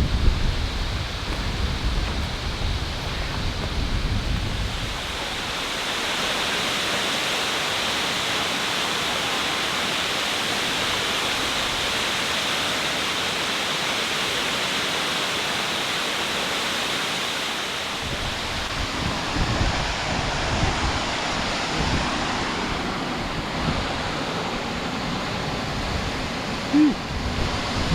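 Waterfall: a steady, loud rush of falling water. Wind buffets the microphone in the first few seconds and again from about 18 s in.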